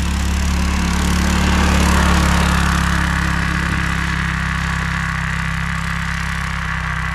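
Small single-cylinder engine, the tracked mini bike's Predator 212, running steadily, its note swelling slightly about two seconds in.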